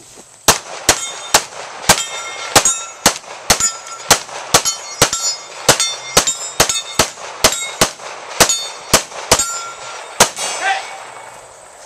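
Rapid gunfire at steel targets, about twenty-five shots in ten seconds. Many shots are followed by the brief metallic ring of a steel plate being hit.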